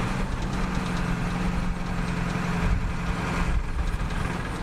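1995 Ford F-350's 7.3-litre Powerstroke turbo-diesel V8 running steadily as the truck is driven, heard from inside the cab as a low rumble with a steady hum.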